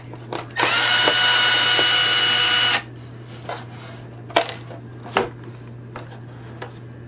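A small cordless drill-driver runs for about two seconds with a steady whine that rises slightly as it spins up, then stops. A few light clicks and knocks follow.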